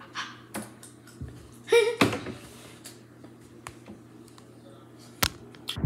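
A child eating rice off a spoon: scattered sharp clicks and taps of the spoon, with mouth sounds. The loudest comes about two seconds in, with a short vocal sound, and another sharp click comes near the end.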